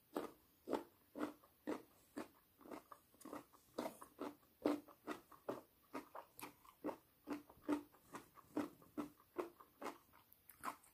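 A person chewing crunchy food close to the microphone: a steady run of short, crisp crunches, about two to three chews a second.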